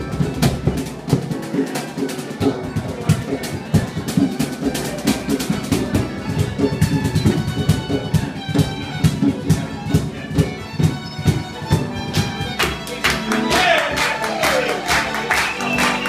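Celtic jam tune: rapid, driving drumming with fiddles playing the melody over it.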